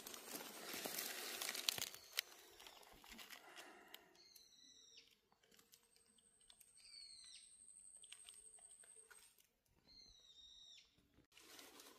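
Dry leaf litter rustling and crunching as a hand works among it for the first two seconds, then a small bird calling: short chirps that fall in pitch, repeated about every three seconds, with a thin high steady note held for a few seconds in between.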